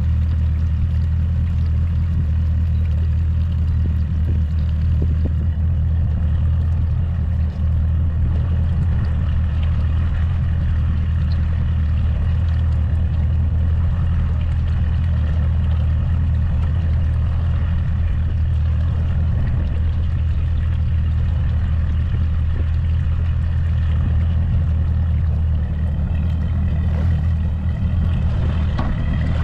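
Mercury Pro XS 200 outboard motor running at a steady speed, a loud, even low drone with no change in pitch.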